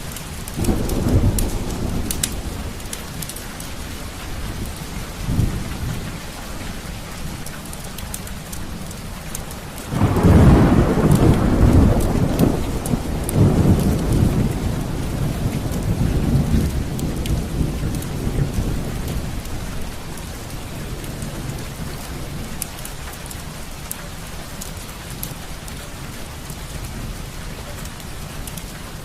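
Steady rain with rolls of thunder: a short rumble about a second in, then a louder one that breaks suddenly about a third of the way through and rolls on, slowly fading, for several seconds.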